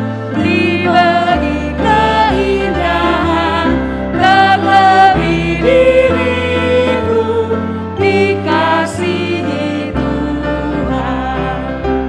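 A hymn sung in Indonesian by a woman and a man in unison or harmony, with grand piano and electric keyboard accompaniment. The sung notes are held and change about every second.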